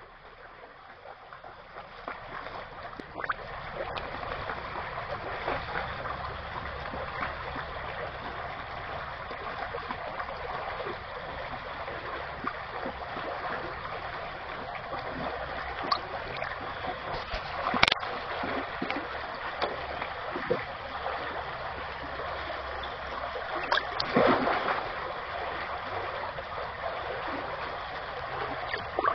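Shallow creek water running steadily over stones. There is a sharp click a little past halfway, and a brief burst of splashing toward the end where a longfin eel feeds at the surface.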